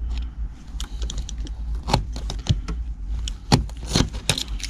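Hands working at the metal base of a VW T4's handbrake lever, giving scattered light clicks and rattles with a few sharper knocks, over a steady low hum.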